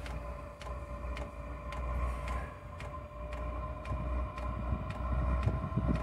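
Diesel air heater starting up: its fan runs with a steady whine while the fuel dosing pump clicks about twice a second, and a low rumble comes and goes as the burner attempts to fire up.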